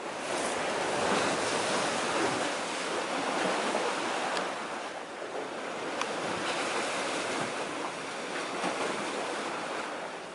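Small sea waves washing against concrete tetrapods on a breakwater: a steady hiss of water that swells and eases, with a couple of faint clicks of splashing.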